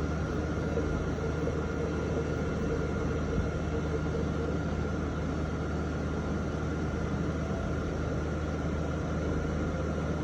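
3D printer running: a steady hum of fans and motors with a thin high tone above it.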